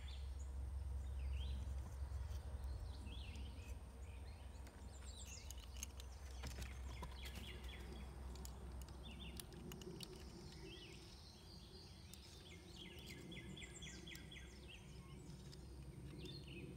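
Outdoor ambience: small birds chirping on and off over a low steady rumble, with a few faint clicks.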